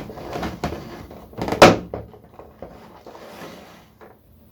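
Cardboard figure box and plastic packaging being opened and handled, rustling and scraping, with one loud scrape about one and a half seconds in.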